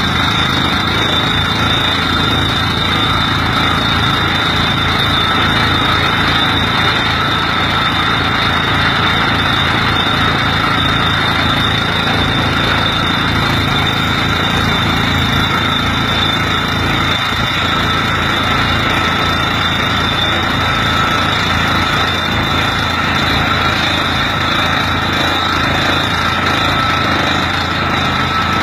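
A tractor-mounted water well drilling rig running steadily, its tractor engine driving the rig's hydraulics through the PTO. A steady high whine rides over the engine's rumble.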